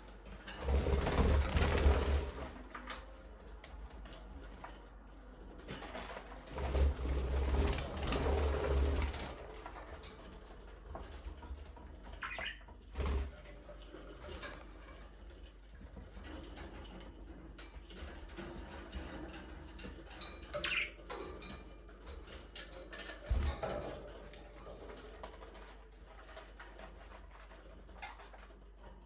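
Budgerigars chirping and chattering in an aviary. Two louder noisy spells of a couple of seconds each come about a second in and about seven seconds in, and there are a few short knocks.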